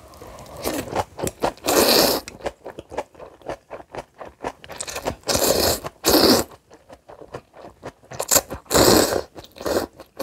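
Close-miked eating: crisp chewing crunches of spicy kimchi, broken by several longer noisy slurps of noodles.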